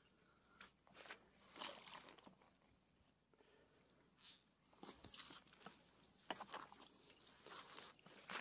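Near silence: a faint high insect trill that breaks off and starts again several times, with soft footsteps and rustling through vegetation.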